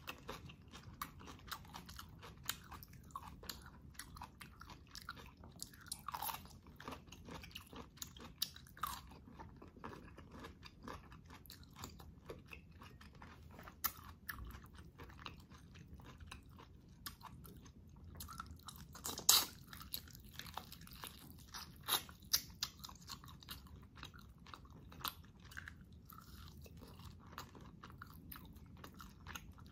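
Close-up eating sounds: a person chewing, biting and gnawing meat off boiled beef neck bones and ribs, with many small wet clicks and crunches. A few louder snaps come about two-thirds of the way through.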